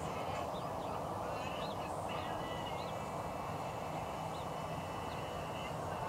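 Faint, short bird calls and a few held thin tones over a steady low rumble of background noise.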